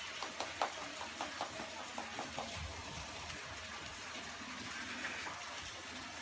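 Light clicks and taps, about ten in the first two and a half seconds, then only a steady background hiss.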